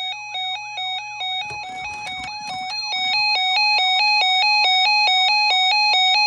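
Electronic emergency alert warning tone, jumping between two pitches about four times a second. Repeated falling chirps sound over it in the first half, with a burst of crackle in the middle, and the tone gets louder about three seconds in.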